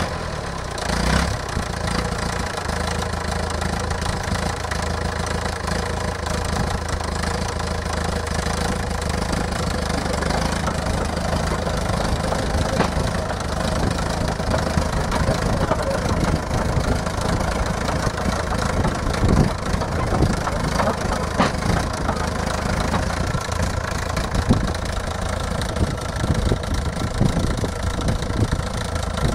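Four-cylinder engine of a 1955 Fordson County crawler tractor running steadily at low revs while the crawler is driven slowly, with a brief louder burst about a second in.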